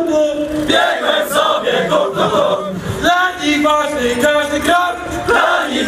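A large group of voices chanting and singing together in unison, with some notes held and others short.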